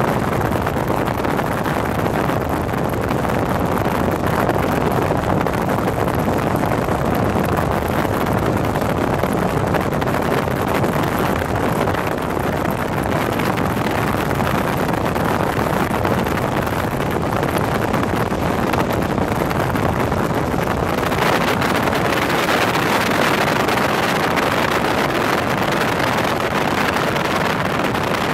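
High-speed outboard motorboats running flat out, with wind rushing over the microphone: a steady, loud rushing roar. About three-quarters of the way through, the sound turns brighter and hissier.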